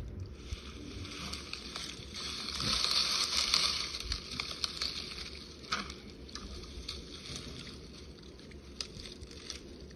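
Rustling and crackling of dry grass and twigs being handled and stepped through, with scattered sharp snaps and a louder swishing swell about three seconds in.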